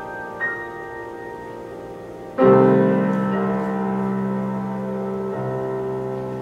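Grand piano playing slow, quiet classical music: a soft high note about half a second in, then a loud low chord struck a couple of seconds in and left ringing as it slowly fades.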